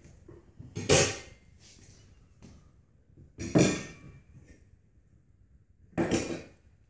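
Three sharp knocks, about two and a half seconds apart, as the wooden puppy feeder and its bowls are handled.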